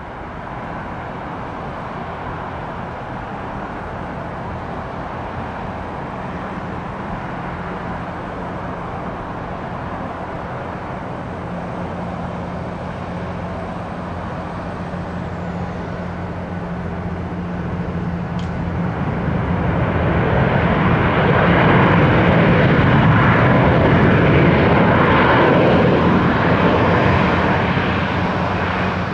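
Boeing 737-800 jet airliner landing, its CFM56 engines running steadily with a faint high whine that falls away about halfway through. Then the engine noise swells to its loudest for several seconds and eases off near the end.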